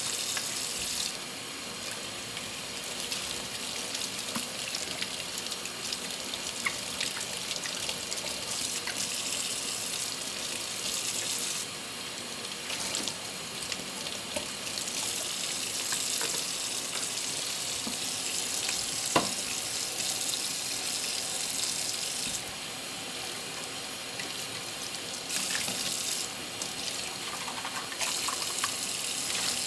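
Tap water running into a kitchen sink during hand dishwashing, the rush growing and fading several times as the stream changes, with a few light clinks and one sharper knock of dishes.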